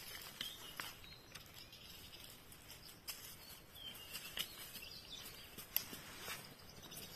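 Dry twigs and leaf litter crackling and snapping as a hunter and his dogs push through leafless brush, with scattered sharp clicks, the sharpest about six seconds in. A brief high whine-like sound comes about four seconds in.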